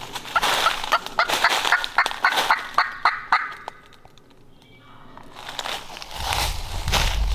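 A run of about a dozen turkey yelps, roughly four a second, that fades out after about three and a half seconds. Near the end, footsteps crunch through dry leaves.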